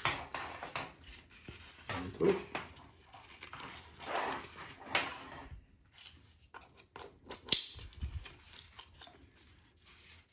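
Nylon webbing straps of a dog harness rustling and sliding through plastic buckles and adjusters as hands handle it, with a few sharp plastic clicks.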